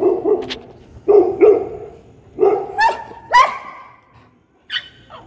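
Puppy yelping and crying in a string of short distress calls, several sliding up into sharp high yelps, while it is stuck in a small water-filled pit.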